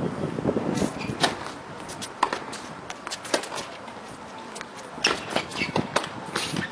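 Tennis ball being struck and bouncing, a string of irregular sharp knocks, with footsteps on the court in the first second.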